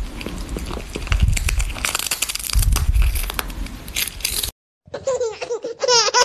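Cat chewing a dried fish: crisp, crackling crunches with heavy low thumps from the jaw, in bursts. About four and a half seconds in it cuts off to a brief silence, then high, wavering squeals start near the end.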